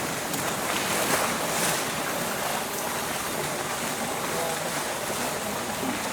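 Steady rush of running water, with faint voices far off.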